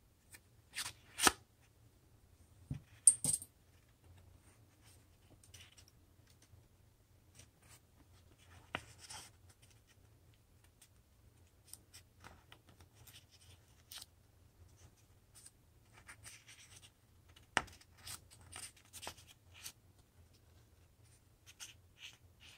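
Construction paper handled by hand: soft rustles and crinkles broken by a few sharp clicks and taps, the loudest of them about one and three seconds in.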